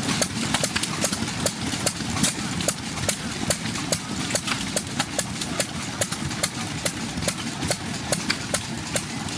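Vintage engine running slowly, with a steady, even train of sharp clacks a few times a second over a low rumble.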